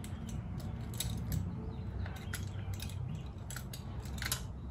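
Scattered light clicks and taps of small parts and tools being handled while a plastic handlebar display mount is fitted to an e-bike, over a steady low hum.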